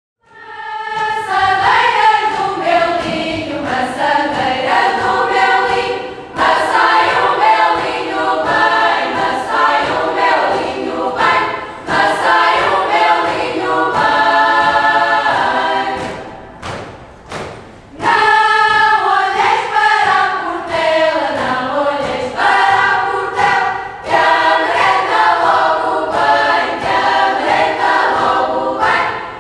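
Choir of women's voices singing a traditional Manhouce folk song in several parts. The singing briefly breaks off about sixteen seconds in and starts again about two seconds later.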